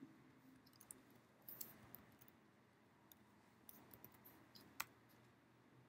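Faint, scattered clicks of a computer keyboard and mouse, with one sharper click about five seconds in.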